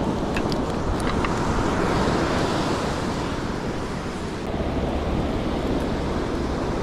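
Ocean surf breaking and washing up a sandy beach, with wind buffeting the microphone. A few light clicks in the first second or so.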